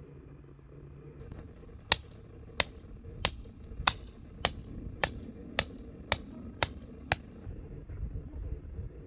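A hammer driving a metal tent stake: ten even blows, about two a second, several with a short high ring.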